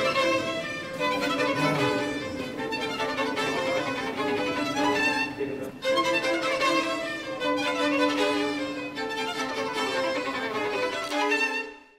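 Background music led by a violin playing a slow melody of held notes, fading out just before the end.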